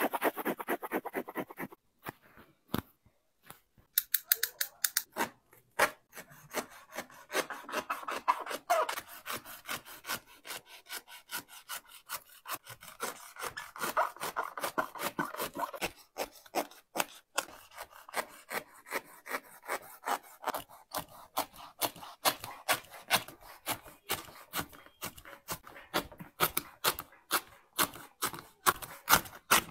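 A blade sawing and scraping through a sneaker's upper and sole materials, in quick runs of short rasping strokes.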